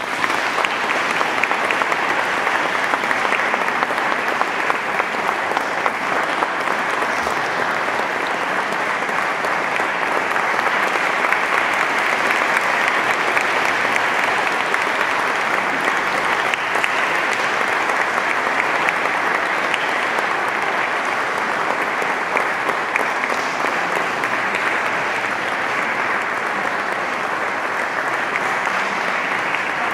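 Audience applauding, a dense steady clapping that starts right as the choral singing ends.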